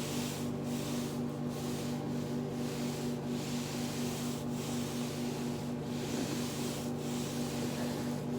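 Foam roller rolling under a body: a continuous rubbing hiss, broken by short gaps every second or so, over a steady low hum. No joint cracks are heard.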